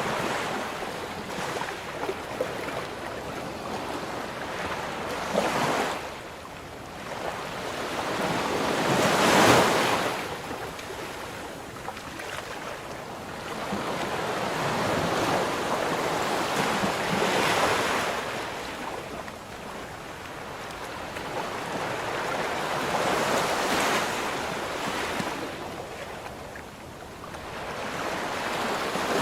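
Sea waves breaking and washing in, a continuous roar that swells and falls away every several seconds. The biggest surge comes about a third of the way in.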